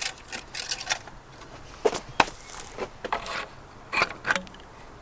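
About a dozen irregular sharp clicks, clinks and knocks of battery hardware being handled and fitted in a car's engine bay, the loudest a little after two seconds and around four seconds in.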